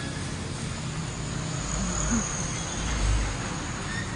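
Steady high-pitched chirring of insects, with two brief low rumbles about a second and a half and three seconds in.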